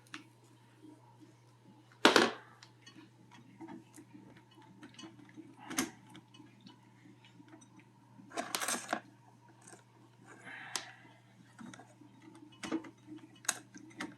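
Scattered clicks, knocks and scrapes of a borescope camera cable being twisted and pushed into a dishwasher drain line. A sharp knock comes about two seconds in and a longer scrape near nine seconds, over a steady low hum.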